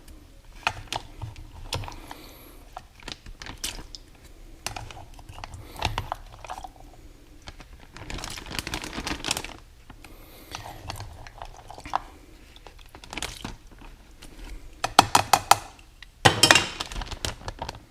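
Irregular clicks, scrapes and clatter of a ladle working in a container of boiled feed corn, with scooped corn and cooking liquid going into the bag of pack bait. There are longer noisy stretches about halfway through and a busier run of clicks near the end.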